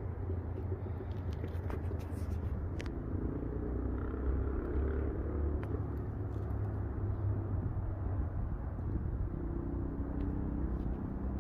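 Steady low outdoor rumble, with a faint hum that swells about three seconds in and again near the end, and a few faint clicks.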